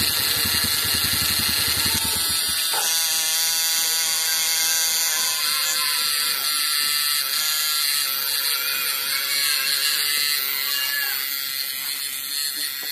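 A motorcycle engine runs on sparks from a homemade fish-shocker circuit and cuts out about two and a half seconds in. After that the circuit's high electric buzz and steady whine go on alone.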